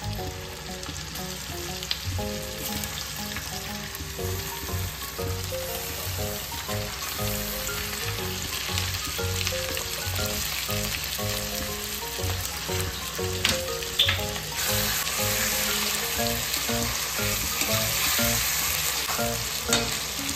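Raw chicken pieces sizzling in hot oil in a steel kadai, the frying getting louder as more pieces go in, with a few sharp metal clicks near the end as the steel ladle stirs. Soft background music with a melody runs underneath.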